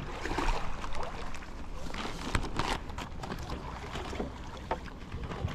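Raindrops hitting a kayak and rain gear as many irregular sharp taps, over a low wind rumble on the microphone.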